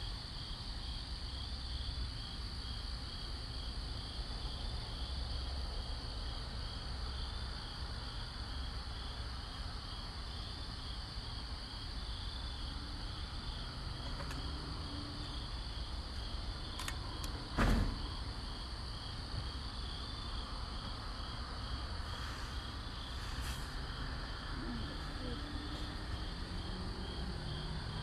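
Crickets in a night chorus: one trilling steadily and another chirping in quick even pulses. A single thump comes about two-thirds of the way through.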